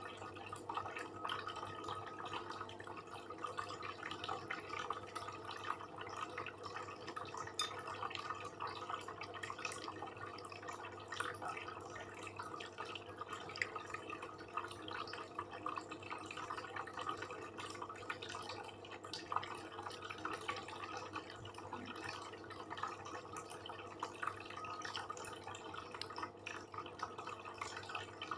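Close-miked wet chewing, lip-smacking and mouth sounds of a person eating satay and rice, a steady run of small clicks and smacks.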